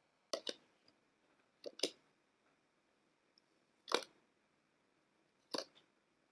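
Playing cards being dealt one at a time: four short, sharp snaps about one and a half to two seconds apart, the first two each a quick double flick.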